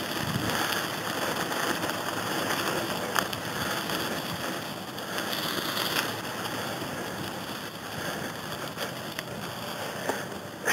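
Wind rushing over the microphone and wheels rolling on gravelly pavement while riding, as a steady noisy rush with scattered small clicks.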